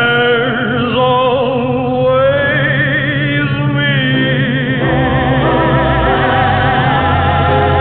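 A recorded ballad: a singer holds a long, wavering note over the band, and about five seconds in the backing settles into a steady held chord.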